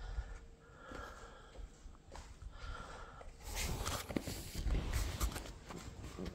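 Footsteps and the handling noise of a phone being carried and gripped, with rubbing and rustling on the microphone loudest from about three and a half to five and a half seconds in.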